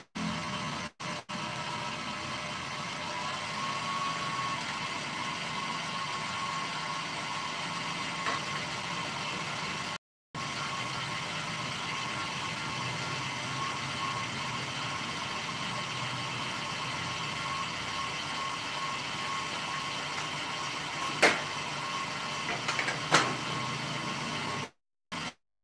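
Stand mixer motor running steadily at low-to-medium speed with a constant whine, whisking egg whites toward the frothy stage for a meringue. Two sharp knocks come near the end.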